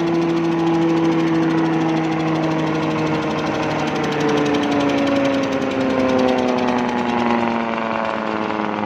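Corn silage chopper driven by its air-cooled 10-horsepower engine, running steadily. From about halfway through, the pitch sinks slowly as the machine slows.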